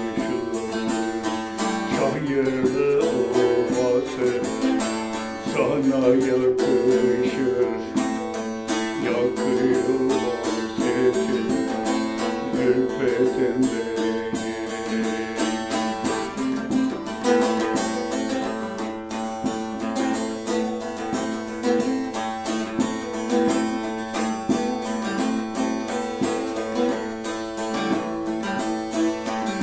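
Bağlama (long-necked Turkish saz) played with a plectrum: a quick strummed melody over a steady low tone that runs unbroken underneath.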